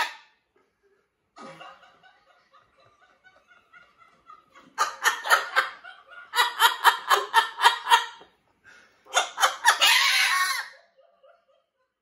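Jubilee hybrid macaw mimicking laughter: after some soft quiet chatter, bouts of rapid rhythmic ha-ha-ha, about five pulses a second, ending in a harsher, rougher laugh about ten seconds in.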